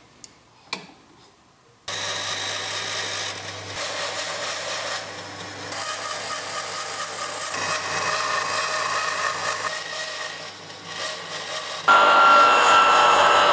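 Two faint clicks, then a bandsaw cutting a long wooden board: a low motor hum under blade noise that rises and falls through the cut. About twelve seconds in it changes to a Metabo sliding mitre saw's motor running with a high, steady whine.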